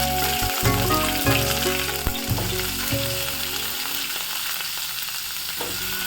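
Food frying in hot oil in a pan, a steady sizzle with some stirring, under background music that thins out in the second half.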